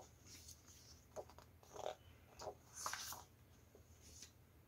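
Faint rustles of printed paper sheets being handled and slid aside: a handful of short, soft swishes with quiet between them.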